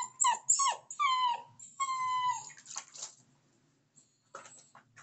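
Dapple dachshund puppy whining while being bathed: about four high cries that fall in pitch, packed into the first two and a half seconds, the last two drawn out longer.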